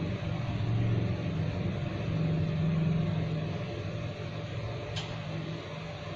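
Steady low mechanical hum with hiss, swelling a little about one second and again two to three seconds in, and a single sharp click about five seconds in.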